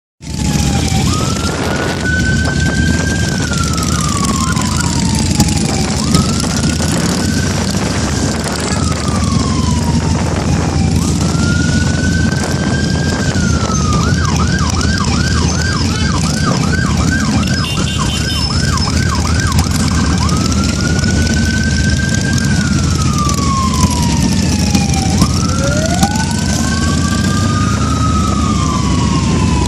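Electronic siren sounding a wail that rises quickly and falls slowly about every four seconds. It switches to a fast yelp, about three cycles a second, for several seconds in the middle. Under it runs the steady low sound of motorcycle engines running and road noise.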